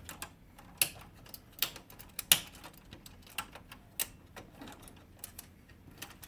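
Irregular light plastic clicks and taps from hands working inside a laser printer, unclipping the transfer roller from its holders, with one sharper click about two seconds in.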